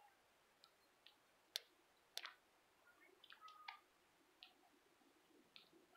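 Near silence, broken by a few faint short chirps and two sharp clicks, about a second and a half and two seconds in.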